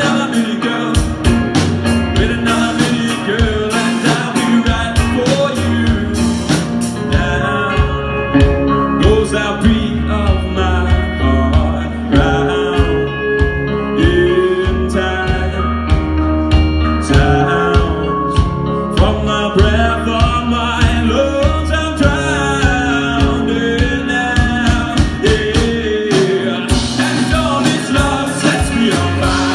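A live alternative rock band playing: drums, bass and electric guitar with sung vocals.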